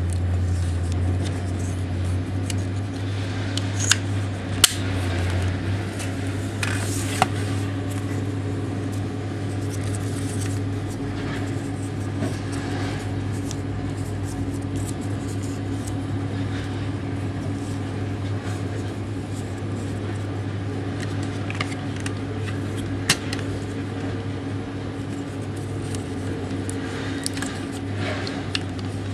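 Steady low electrical hum with a few sharp clicks scattered through it, typical of a plastic clothing tag gun being handled and fired.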